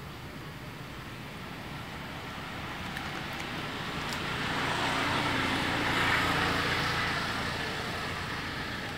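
A road vehicle passing by: a rush of noise that grows louder until about six seconds in, then fades away.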